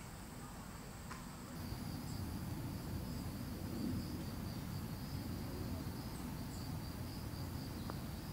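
Steady high-pitched insect trilling over a low outdoor rumble. About one and a half seconds in, the trill drops to a lower pitch at a picture cut, and a faint tick comes near the end.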